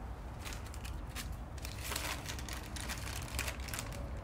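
Light, irregular crackling and rustling as wafer-thin crisped slices of cured meat are handled on baking paper and fitted onto the burger skewers.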